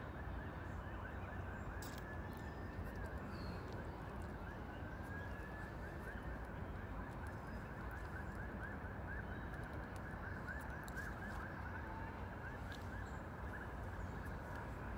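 A rapid series of short animal calls, several a second, with a few longer gliding calls mixed in, over a steady background hiss.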